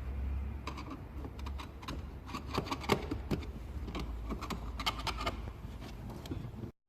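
A run of light clicks and rattles, thickest in the middle, over a low steady hum; the sound cuts off suddenly near the end.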